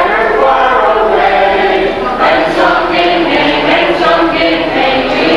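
A group of voices singing together in held notes.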